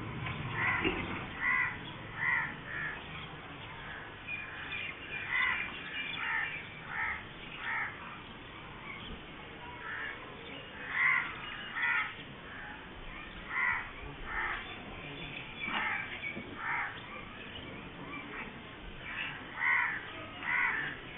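Crows cawing: many short calls repeated irregularly, often one or two a second.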